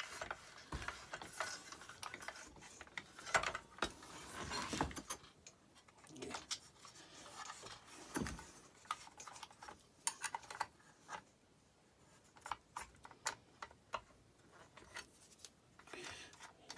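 Irregular metal clicks, knocks and scrapes of a wrench on the arbor bolt of a DeWalt circular saw and of the saw being handled, with the spindle lock pressed so the blade can't turn while the bolt is loosened.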